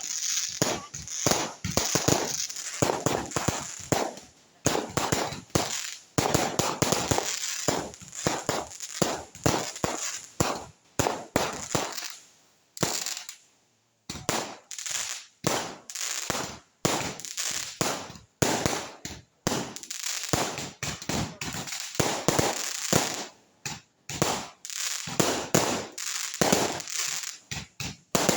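Fireworks going off: a rapid, near-continuous string of bangs and crackles, with a brief lull about halfway through.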